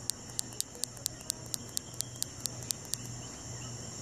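Night insects: a steady high-pitched drone, with a quick run of sharp clicking chirps about five a second that stops about three seconds in.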